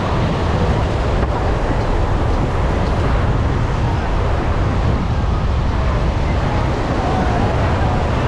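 Steady wind rumbling on the microphone, with surf washing behind it and faint voices in the distance.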